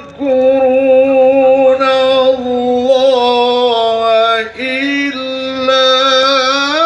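A man reciting the Quran in melodic tilawah style over a loudspeaker system, holding long steady notes with small ornamental wavers, with a short breath just after the start and another about four and a half seconds in.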